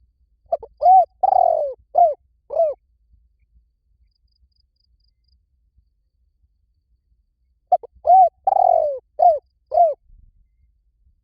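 Spotted dove cooing: two phrases, about seven seconds apart. Each is a short run of hollow notes, with one longer note that falls in pitch in the middle.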